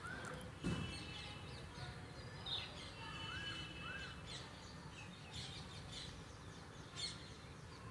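Birds chirping faintly, scattered short chirps and a few brief whistled calls, over a low steady background noise.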